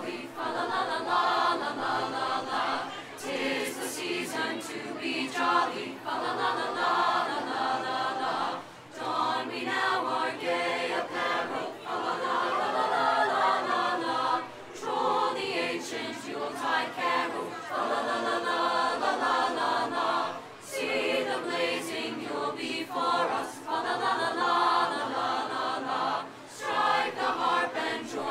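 A choir singing, in phrases several seconds long with short breaks between them.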